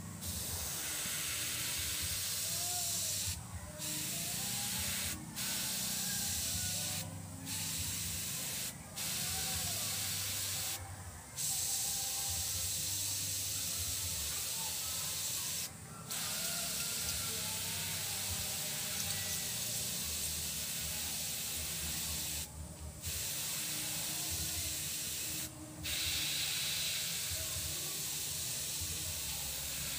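Airbrush spraying paint: a steady high hiss of air through the nozzle that cuts off for a moment about eight times as the trigger is let go, over a steady low hum.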